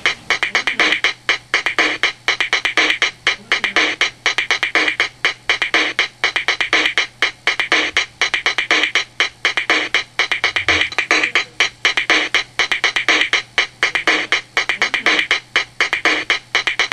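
Electronic synthesizer music with a fast, steady drum-machine beat.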